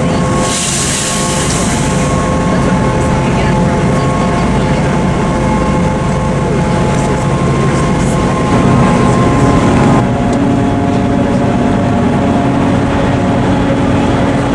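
Cog railway train running steadily: a low rumble of the drive and wheels under a steady engine hum and whine, heard from aboard. A short hiss comes about half a second in. Around ten seconds in another engine note joins as a second cog train comes alongside and passes.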